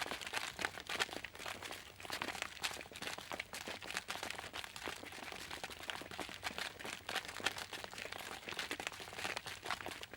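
Footsteps crunching over a loose, crackly surface, with a dense run of small crackles and irregular louder crunches about once a second.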